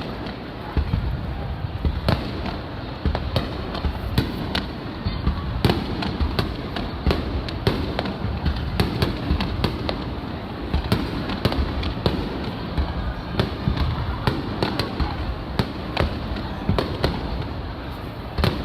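Aerial fireworks shells bursting in quick succession: many sharp, irregular bangs and crackles several times a second over a continuous low rumble.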